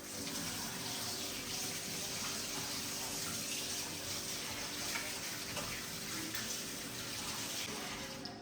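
Water running steadily from a tap, starting and stopping abruptly.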